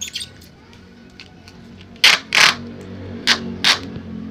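Clear packing tape being pulled and pressed along a plastic-and-ribbon kite hummer strip: a few light clicks at the start, then two loud noisy rips about two seconds in and two shorter ones a second later.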